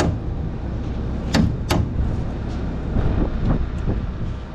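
A framing hammer tapping a nail into the end of a wooden rafter tail: two sharp taps about a second and a half in, then a few lighter ones, over a steady low wind rumble on the microphone.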